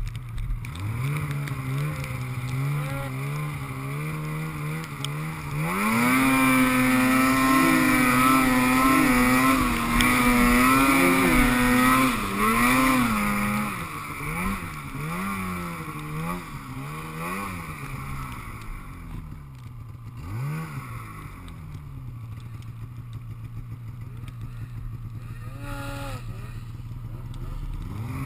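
Snowmobile engine running at low revs, then revving up about six seconds in and holding high revs for several seconds. It then goes through a run of short throttle blips that rise and fall, and settles back to a low steady speed with one more brief blip near the end.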